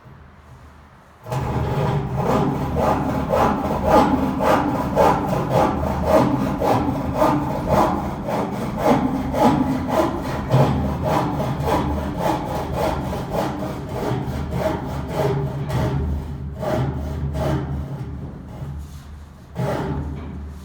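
Wood being cut with a hand saw: a long run of even back-and-forth strokes that starts about a second in.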